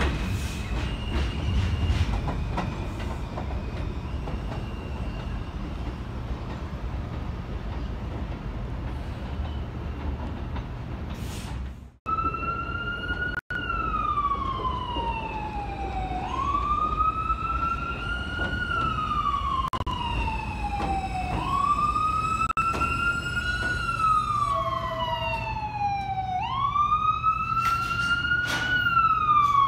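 An R160A-1 subway train's steady rumble at an elevated station. After a brief cut about twelve seconds in, an emergency vehicle siren wails over the rumble, rising quickly and falling slowly about once every five seconds.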